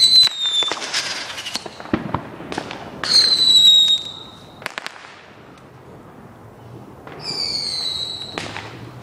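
Consumer fireworks going off: three whistling shells, each shrieking for about a second with a slightly falling pitch, near the start, about three seconds in and about seven seconds in. Sharp bangs and crackling bursts come in between.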